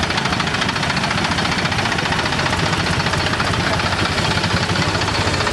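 Farm tractor's diesel engine running steadily at an even speed, heard close up.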